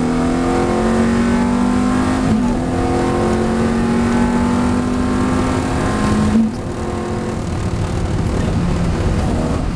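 Ferrari F430's V8 engine heard from inside the cabin, accelerating hard through the gears: the engine note climbs steadily, drops with an upshift about two and a half seconds in, climbs again, and drops with another upshift about six seconds in. It is quieter and rougher for the last few seconds.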